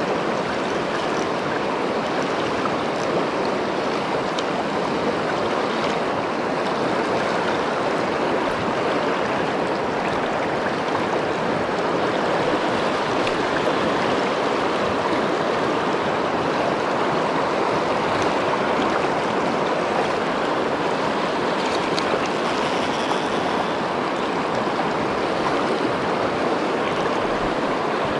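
River water rushing steadily, an even, unbroken noise of fast-flowing current.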